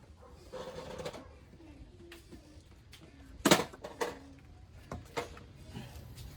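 One sharp knock about three and a half seconds in, followed by two lighter clicks, with faint voices in the background.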